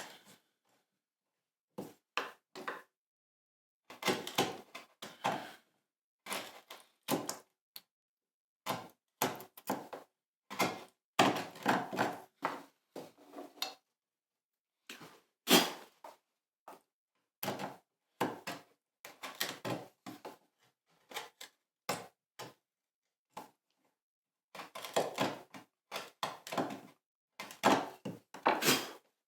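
Hand chisel paring the wooden recess for a knot patch: short, irregular scraping strokes and light knocks as the recess is refined for a snug fit.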